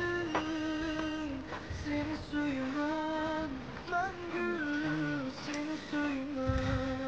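Background music: a high voice singing a slow melody in long held notes that step up and down.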